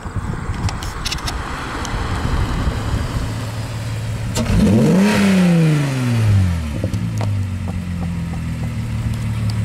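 VW Corrado's VR6 engine revved once: the pitch shoots up sharply about halfway through, then falls back over a second or two. Before and after the rev, engines idle steadily.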